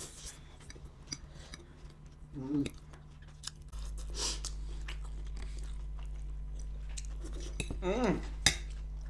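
People chewing mouthfuls of spicy chow mein noodles, with many small scattered mouth and utensil clicks and a couple of brief vocal sounds.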